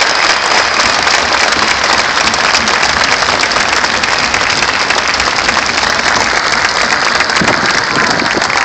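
A very large stadium crowd applauding, a steady dense wash of clapping.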